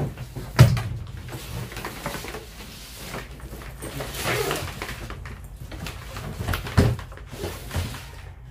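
Hard-shell suitcase being handled and opened: a sharp knock of the shell about half a second in and another near the end, with rustling of the fabric lining in between.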